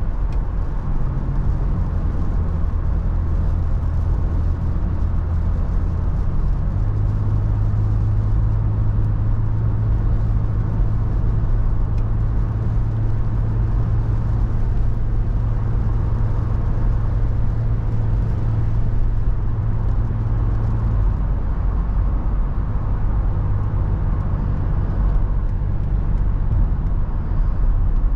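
Toyota FJ Cruiser's V6 engine humming steadily as it drives, over continuous road noise. The engine's pitch shifts about a third of the way in and again about three-quarters through.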